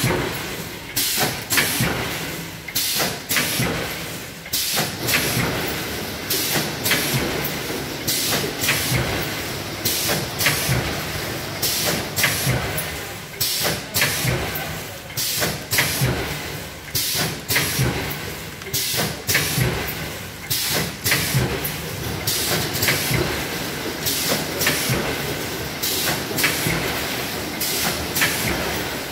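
Automatic vertical pouch packing machine running through its bagging cycle: sharp clacks of the sealing and cutting jaws, with hissing, repeat in a steady rhythm of about one cycle every second or two as snack pouches are filled, sealed and dropped.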